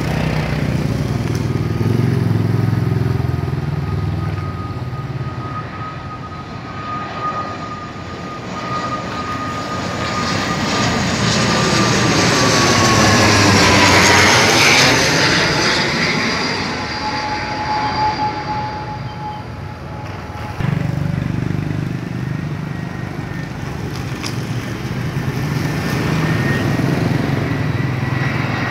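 ATR 72 twin-turboprop airliner on landing approach flying low overhead. Its whine drops in pitch as it passes, loudest about halfway through. In the last few seconds the whine of the next jet airliner rises as it comes in.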